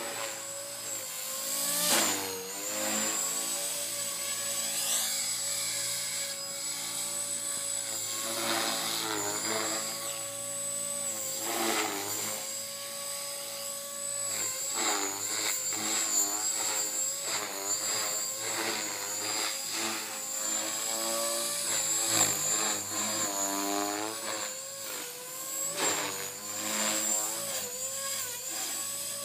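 Blade 450X electric RC helicopter in flight: a high whine from its brushless motor and the buzz of its spinning rotors. The pitch keeps dipping and rising as it is flown through 3D manoeuvres.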